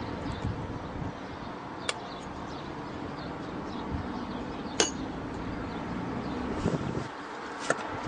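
Small sharp metallic clicks as coax connector parts are handled, three in all with the loudest about five seconds in, over steady background noise.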